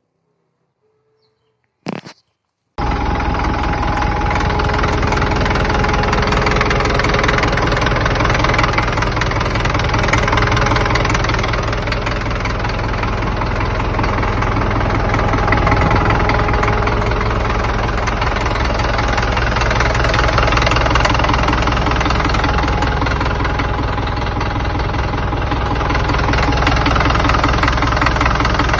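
Caterpillar D4D bulldozer's diesel engine running steadily, cutting in abruptly about three seconds in after a short burst of noise.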